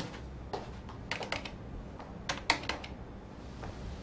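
Typing on a computer keyboard: a few irregular key clicks in small clusters, with pauses between them.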